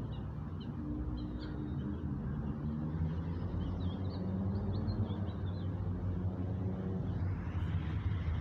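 Outdoor ambience of a steady low traffic rumble, with small birds giving short, high chirps through the first half.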